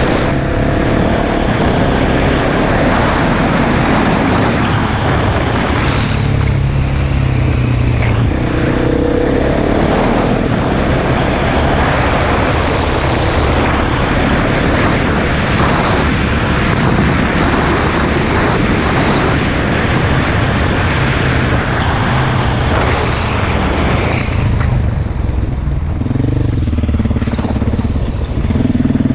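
KTM enduro dirt bike engine revving hard under load, its pitch rising and falling as the throttle is worked, with a dense rushing noise over it for much of the time.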